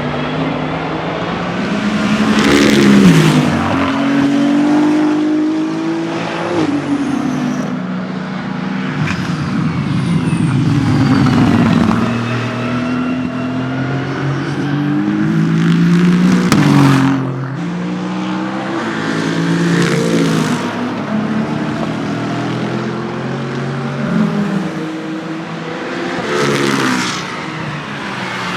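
Hypercar and LMGT3 endurance race cars passing one after another at racing speed, several engines at once. The engine pitch drops as each car goes by, with the loudest pass-bys about three seconds in, at about seventeen seconds and near the end.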